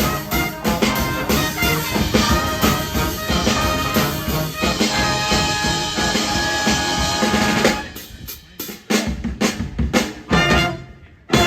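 Pep band of brass horns and drum kit playing; about eight seconds in the horns drop out and the drums play a break of separate hits, with a short pause near the end.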